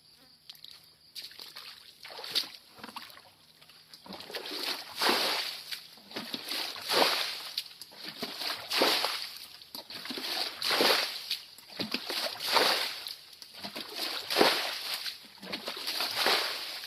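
Muddy water sloshing and splashing into a scoop net, in repeated splashes about every two seconds after a quieter start; near the end a bucket of muddy water is tipped out into the net.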